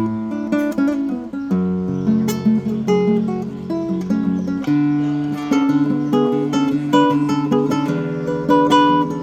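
Yamaha CG162C cedar-top classical guitar with Savarez 500CJ nylon strings, played solo: a plucked melody over held bass notes, with the chord changing about a second and a half in and again near the five-second mark.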